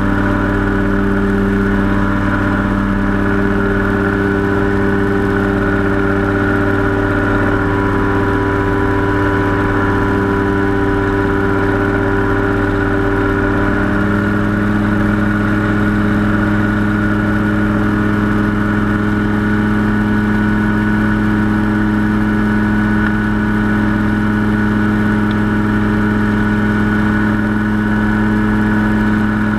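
Powered parachute's engine and propeller droning steadily in level flight. The engine note shifts a little about halfway through.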